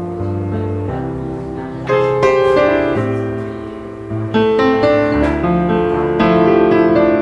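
Instrumental background music: held chords under a simple melody, growing louder about two seconds in and again a little after four seconds.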